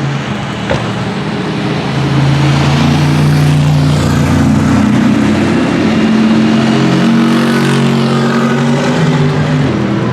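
Several GT race cars running on the circuit, their engines overlapping as they pass and accelerate, getting louder about two seconds in.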